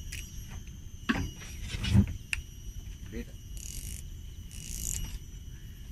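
Steady high-pitched insect drone, with two short strained vocal sounds about one and two seconds in, the second the loudest. Two brief high hissing bursts come near the end.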